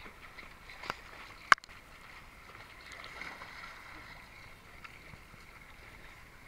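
Swimmers' splashing and water lapping against a camera held at the waterline of a swimming pool. There is a sharp knock about a second in and a louder one about a second and a half in.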